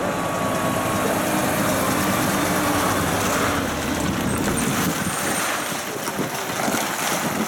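Mack logging truck's diesel engine running as the loaded truck and trailer drive past, loud at first and easing off about five seconds in as it moves away.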